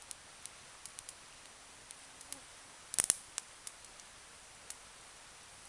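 Small wood campfire crackling: scattered sharp pops, with a louder cluster of cracks about three seconds in.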